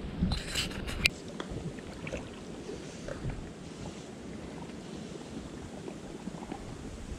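Shallow creek water running steadily, with wind rumbling on the microphone. A few short sharp clicks come in the first second or so.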